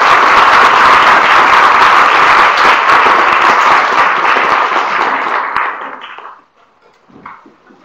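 Audience applauding: dense, loud clapping that dies away after about six seconds.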